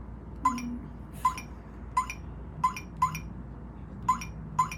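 Smart lock touchscreen keypad beeping once for each key pressed as a passcode is entered: seven short high beeps at uneven intervals.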